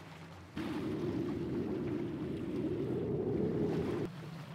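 Wind buffeting the microphone on an open deck: a low rumble that starts abruptly about half a second in and cuts off just as abruptly near the end.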